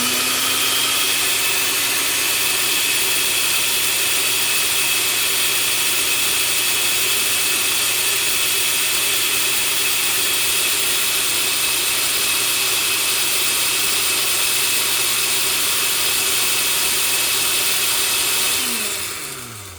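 Countertop blender motor spinning up, running steadily at full speed, then winding down with a falling pitch near the end.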